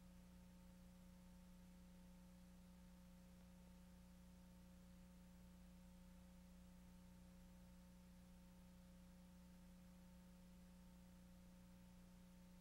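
Near silence, with only a faint steady hum underneath.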